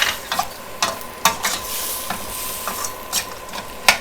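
Chopped onion and tomatoes sizzling in butter and oil in a pan while a spoon stirs them, knocking and scraping against the pan about eight times, loudest near the end.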